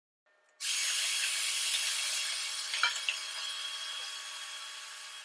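Wet/dry shop vacuum running, a steady hiss with a thin whine as it sucks up sawdust from the shop floor. It starts suddenly about half a second in, and there are a couple of sharp clicks near the middle.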